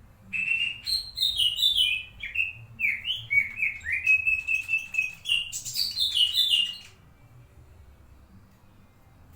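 A songbird singing a varied run of quick whistled notes, some sliding up or down and some held, for about six and a half seconds before stopping. It is played as a masteran, a song for caged white-rumped shamas to learn from.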